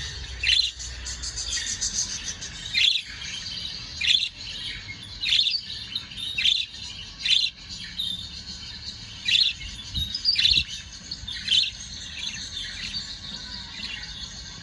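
A pair of budgerigars chirping: loud, short, falling chirps come about once a second over a steady, softer, high warbling chatter.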